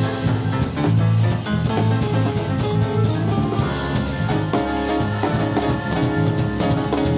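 Jazz combo playing live: drum kit with cymbals over a steady bass line, with piano and other instruments filling the middle.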